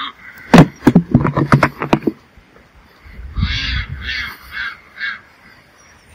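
A quick run of sharp clicks and knocks in the first two seconds, then farm poultry giving about four harsh calls in a row around the middle.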